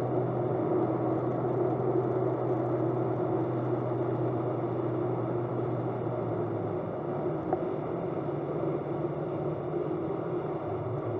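Rotax engine of a light aircraft droning steadily in flight, with the propeller and airflow noise. Its low steady note drops away about two-thirds of the way through.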